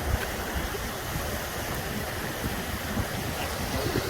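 Steady rushing of river water: an even hiss with no distinct events, over a low, unsteady rumble.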